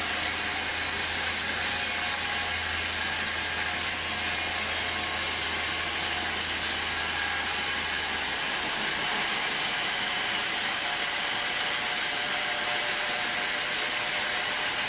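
Homemade band sawmill running and sawing lengthwise through a teak log: a steady, even hiss of the band blade in the wood over the machine's running noise. A low hum underneath drops out a little past halfway.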